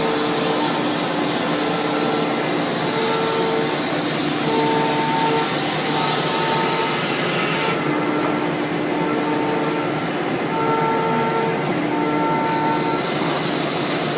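Citizen L20 Type VII CNC Swiss-type lathe running a machining cycle. A steady hiss sounds under motor whines that step between pitches every second or so. The upper hiss drops away about eight seconds in and comes back near the end.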